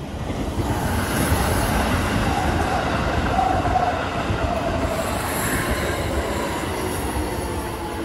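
Keikyu 600-series electric train passing close by over a level crossing: the rumble of wheels on rails swells over the first second, is loudest in the first half, and slowly fades as the train moves away.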